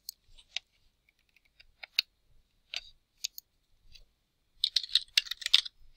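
Scattered single computer clicks, then a quick run of keystrokes on a computer keyboard about two-thirds of the way through.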